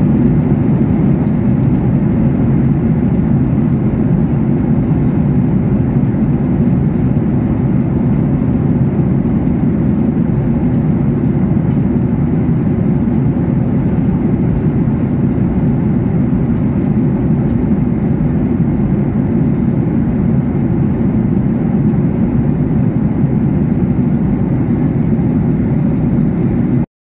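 Steady cabin noise of a jet airliner in cruise, the even low drone of engines and airflow heard from inside the cabin. It cuts out for a moment at the very end.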